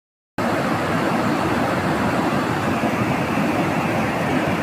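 White-water rapids of a mountain river rushing over rocks, a steady loud roar of water that starts after a split-second silent gap.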